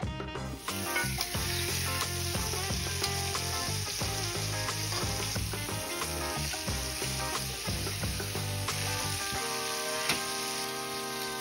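Marinated chicken thighs searing in hot oil in a cast-iron skillet: a steady sizzle that starts about a second in, with the pieces being turned with tongs. Background music plays underneath.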